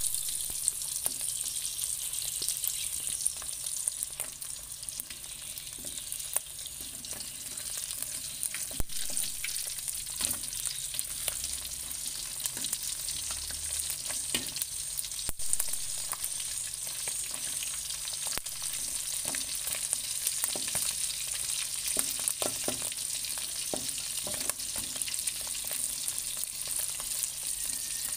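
Salted fish frying in oil in an aluminium wok: a steady sizzle, with a metal spatula scraping and tapping against the pan now and then.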